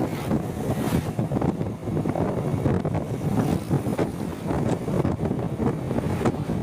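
Wind rushing and buffeting over the microphone of a moving motorcycle, mixed with road and traffic noise, a steady loud rumble that drowns out the rider's voice.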